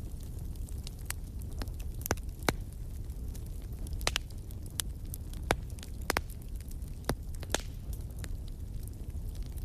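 Wood fire in a fireplace crackling, with irregular sharp pops over a steady low rumble.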